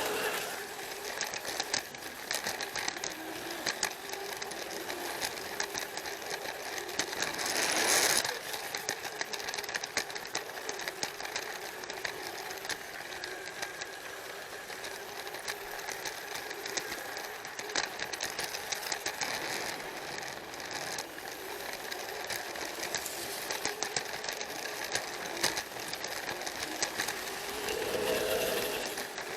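Plarail toy train running on plastic track: its small battery motor and gearbox whirring steadily, with a dense rapid clicking of wheels and gears. A brief louder rush comes about eight seconds in.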